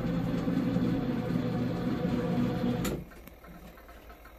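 HQ mini washing machine's wash motor running with a steady hum, then stopping with a click about three seconds in: a pause in the agitation cycle.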